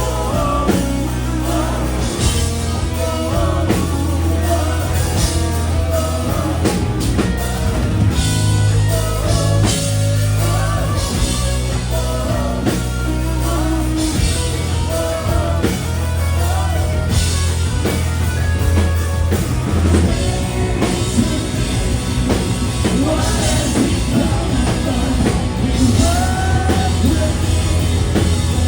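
Rock song with sung vocals over a drum kit, guitars and a heavy, steady bass.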